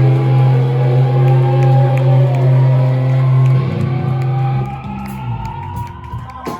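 Loud amplified rock band music: a low bass-and-guitar drone is held, then breaks off about four seconds in, leaving quieter sliding, wavering guitar tones.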